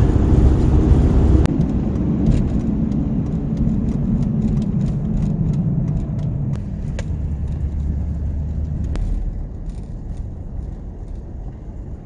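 Pickup truck driving, heard from inside the cab: a steady low engine and road rumble that eases off through the second half as the truck slows, with faint scattered clicks and rattles.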